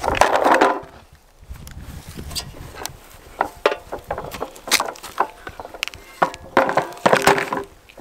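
Hollow plastic knocks and clatters from a toy dump truck being handled and knocked against a plastic barrel. There is a loud clatter at the very start, scattered knocks through the middle, and another burst of knocking near the end as the truck is shoved into the barrel.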